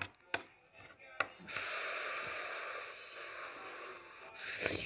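A few small clicks, like LEGO pieces being handled on a wooden table, then a steady hiss lasting nearly three seconds.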